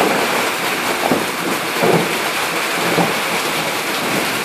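Heavy tropical rain pouring steadily onto tiled and corrugated roofs, with thunder rumbling in low swells about one, two and three seconds in.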